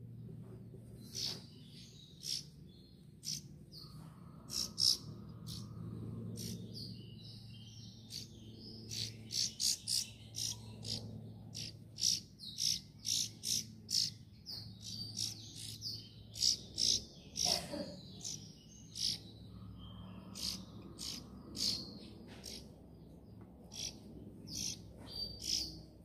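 A small bird chirping: short high chirps, a few at a time at first, then in quick runs of several a second, with a low steady hum underneath.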